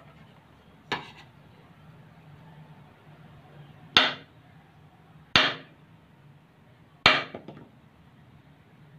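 Kitchen knife chopping through a bar of soap, its blade striking the stone countertop: a light tap about a second in, then three sharp knocks with a brief ring, about a second and a half apart.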